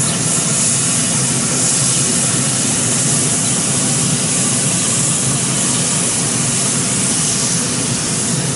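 Rack of lamb sizzling fat cap down on the hot grates of a pellet grill: a steady hiss.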